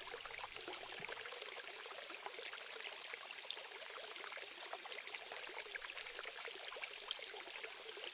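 Small stream trickling steadily: a soft hiss of running water with many small splashes.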